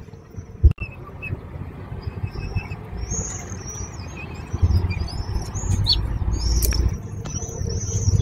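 Downy hawk chicks giving short, high-pitched begging cheeps, repeated in clusters and more often in the second half. Under them is a low rumble, and there is a sharp knock just under a second in.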